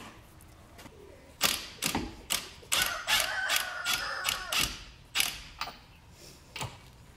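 Ratchet wrench clicking as the lug nuts are run down to refit a car wheel: a string of sharp metal clicks, busiest between about one and a half and five seconds in, then a few scattered ones.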